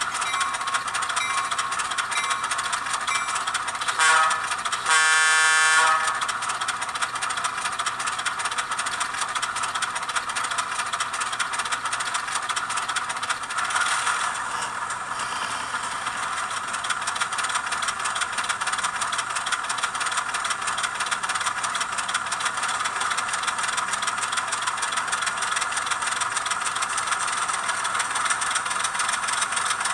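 Diesel switcher sound from an ESU LokSound decoder in an N-scale Atlas VO1000 model locomotive, played through a tiny 8 mm × 12 mm speaker in the cab. The engine runs steadily, with a short horn toot about four seconds in and a longer horn blast right after it.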